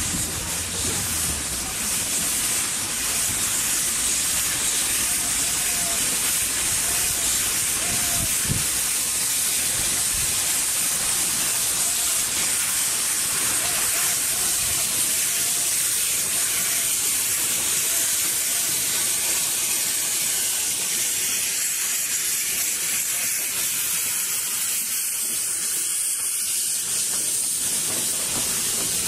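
Narrow-gauge steam locomotive hissing steadily as it blows steam while running slowly past at low speed.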